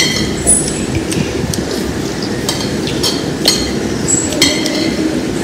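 Tableware clinking at a meal, a handful of sharp clinks spread through, over a steady low hum.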